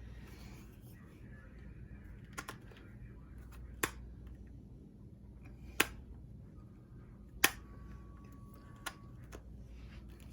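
A few sharp, separate clicks and taps of kitchen utensils, about five spread over ten seconds, over a faint steady low hum.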